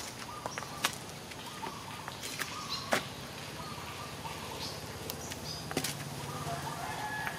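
A steady low motor hum, with a few sharp clicks about one, three and six seconds in.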